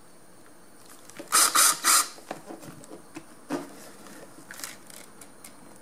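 Cordless drill driving a screw into a motorcycle seat pan in three short spurts about a second in, followed by light clicks and knocks.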